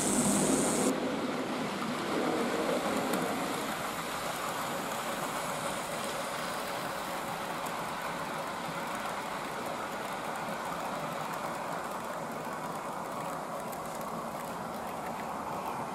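Model railway train rolling along the track: a steady running noise of wheels on rails and the locomotive's small electric motor, somewhat louder in the first few seconds. A higher hiss cuts off abruptly about a second in.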